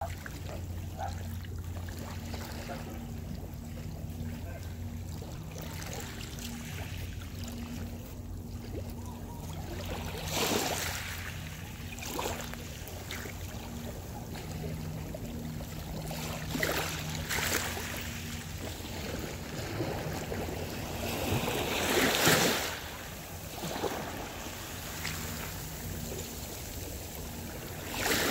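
Small waves washing up on the shoreline right by the microphone, coming in as irregular splashing surges, the loudest about three-quarters of the way through, over a steady low rumble.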